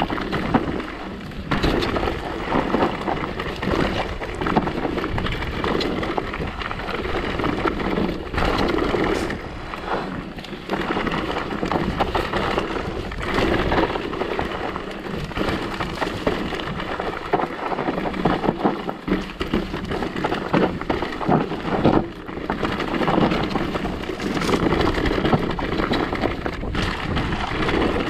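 Mountain bike ridden over a rough trail: steady tyre noise on dirt and stones, broken by frequent rattles and knocks from the bike over bumps.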